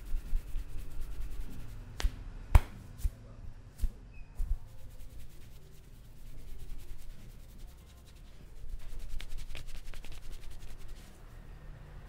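A few sharp cracks from a head-and-neck massage, the loudest about two and a half seconds in. Later come fingers rubbing briskly through hair against the scalp.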